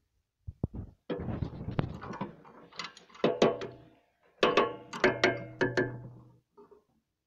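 Metal clanking and clicking on the chopper's steel parts: a few clicks, a rattling stretch, then two runs of sharp ringing strikes, with no engine running.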